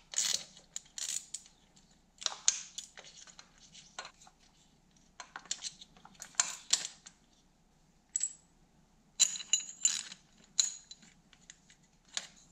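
Wrench and steel bolts clinking while the engine head-mount bolts are loosened and pulled from a 2001 Yamaha YZ250 frame: irregular separate metallic clicks and clinks, with a few brief ringing clinks about eight to ten seconds in.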